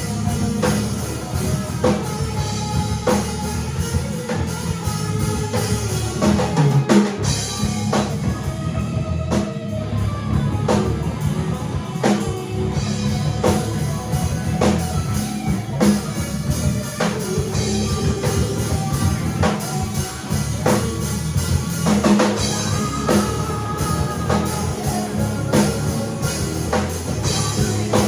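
A rock band playing a song together live: a drum kit keeping a steady beat under electric guitar.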